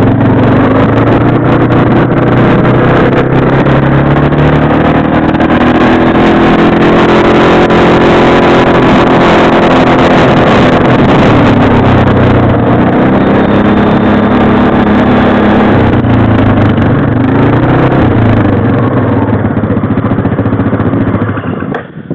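ATV engine running under way, its pitch rising and falling several times as the quad speeds up and slows, with a rushing noise beneath it; the sound drops away abruptly at the very end.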